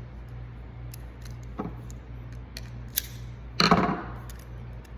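Metal clicks from an adjustable Schlage JD series deadbolt bolt being handled: a couple of sharp clicks, then a louder clatter of metal parts about three and a half seconds in, over a steady low hum.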